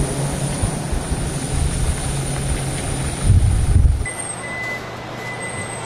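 A parked jet airliner's steady high turbine whine, with wind rumbling on the microphone. It cuts off about four seconds in to a quieter scene where a high electronic beep sounds on and off, like a vehicle's warning beeper.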